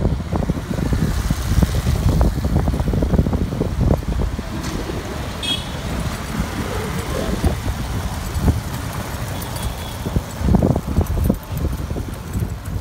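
Road traffic at a busy border crossing: motorbikes and other vehicles passing with a continuous rough rumble, a brief high-pitched toot about five seconds in, and a louder swell of passing traffic near the end.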